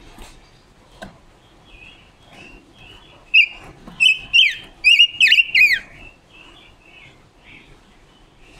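Silver-eared mesia singing: a quick run of about eight loud, clear whistled notes, each sliding down in pitch, from about three seconds in. Softer high chirps come before and after the run.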